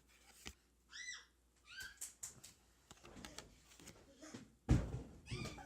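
A young child making two short, high-pitched squealing cries in play, followed by a loud thump a little before the end.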